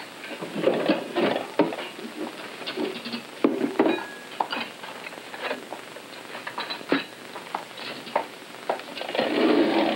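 Refrigerator door and a white hydrator box being handled: irregular knocks and clicks as the box is lifted out and set down on a table, over a steady crackling hiss.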